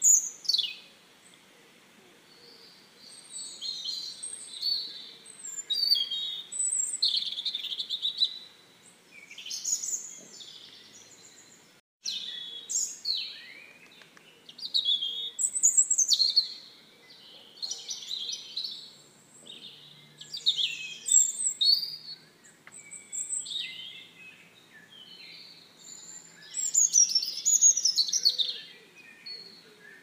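Little spiderhunter nestlings making high, squeaky begging chirps, short rapid calls coming in bursts every second or two.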